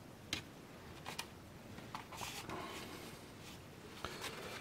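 A few faint clicks and a brief light rubbing of small plastic parts as the Xiaomi Mi robot vacuum's laser distance sensor module is handled and lifted out of its turntable housing.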